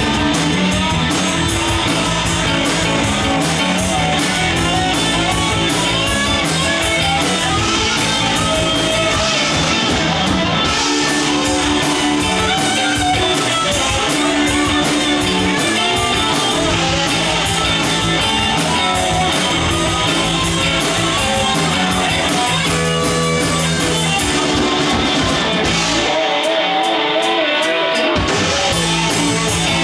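Live rock band playing an instrumental passage with two electric guitars, electric bass and drum kit. Near the end the bass and drums drop out for about two seconds, leaving a lone electric guitar with wavering notes, before the full band comes back in.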